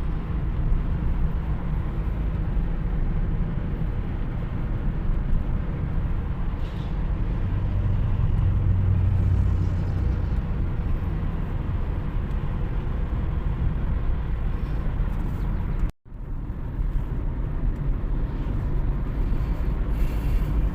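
Steady low rumble of a car's engine and road noise while driving in city traffic, with a low hum swelling for a couple of seconds partway through. The sound cuts out for an instant about sixteen seconds in.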